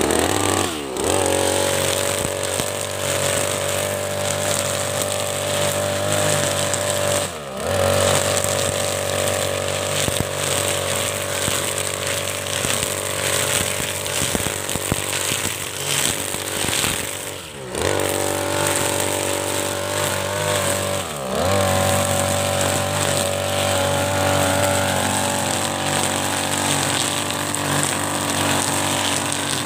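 Backpack petrol brush cutter running at high revs, its spinning nylon trimmer line cutting thick lalang grass. The engine revs up at the start, and three times its note briefly drops and climbs back again.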